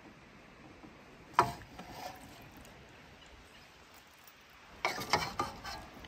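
A metal utensil working in a steel wok of braised quail: one sharp clink with a short ring about a second and a half in, then a quick run of clinks and scrapes near the end as the birds are lifted out.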